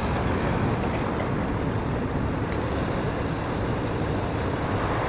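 Steady rushing noise with a low rumble underneath, typical of a large motor yacht's engines and propeller wash as it moves off through the harbour.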